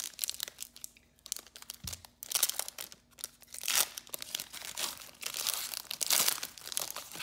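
Foil wrapper of a trading card pack being torn open and crinkled by hand: irregular crackling and tearing in uneven bursts, the loudest about four and six seconds in. A low thump about two seconds in.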